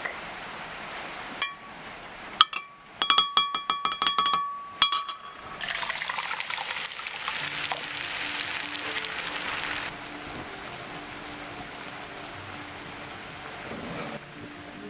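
Enamel bowls clinking against each other with short ringing tones, then tomato juice poured from a bowl into a frying pan of grated vegetables, splashing and hissing for about four seconds. Soft background music comes in under the pouring.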